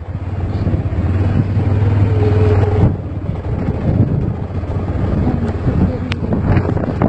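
Honda XR250 Tornado single-cylinder motorcycle engine running under way, with wind buffeting the microphone. The engine builds over the first three seconds and eases off a little after that.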